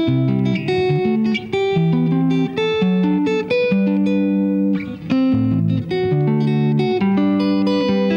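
Stratocaster-style electric guitar arpeggiating open chord voicings (spread triads), picked one note at a time in varied orders so each note rings on under the next.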